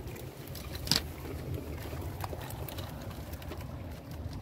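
A weigh sling of fish being handled at a dial scale hung on a tripod: one sharp click about a second in, over a low steady rumble and faint scattered ticks.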